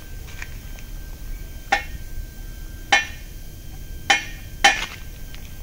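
Steel rectangular tubing knocking against a welded steel frame: four sharp metallic clanks with a short ring, the last two close together.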